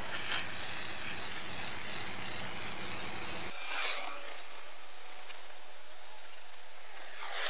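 Water from a garden hose spray nozzle jetting onto a concrete pad, a steady hissing spray as the acid etch-and-clean solution is rinsed off. About halfway through it becomes a quieter, thinner hiss.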